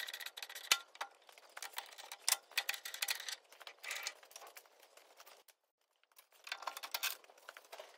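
Thread die in a hand-turned die stock being worked down a freshly screw-cut M24 x 1.5 steel lead screw, chasing the thread to finish it. It gives irregular metallic scraping and clicking, with a sharper click just under a second in and a short pause a little past the middle.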